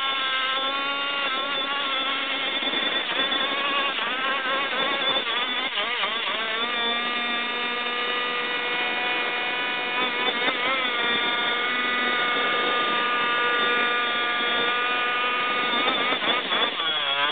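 Ported 29cc Zenoah two-stroke engine on a Goped, with an expansion-chamber pipe, revving hard while its rear tire spins on asphalt in a burnout. The revs waver up and down at first, then hold high and nearly steady for several seconds before dipping near the end.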